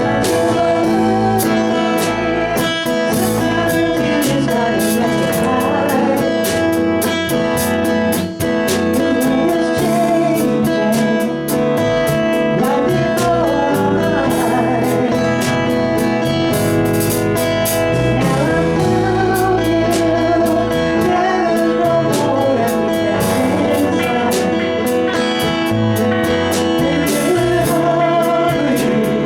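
Live band playing a song with guitar and a singing voice over a steady beat.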